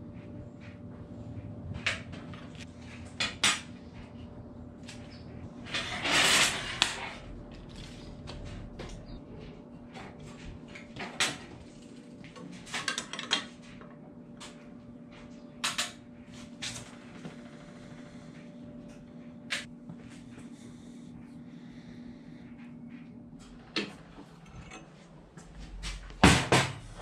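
Metal clinks and clanks from steel rods being fitted and bent in a homemade lever-type rod bender clamped in a bench vise. There is a longer, louder clatter about six seconds in, and heavier knocks near the end. A steady low hum runs underneath until about 24 seconds in.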